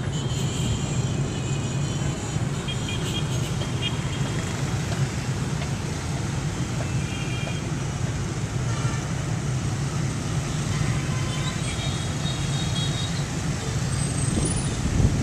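Motorbike and car street traffic: a steady low engine rumble, with a few short, high horn toots.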